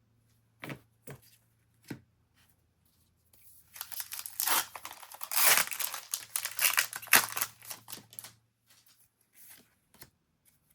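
Foil trading-card booster pack being torn open and its wrapper crinkled: a few light taps, then about five seconds of crinkling and tearing.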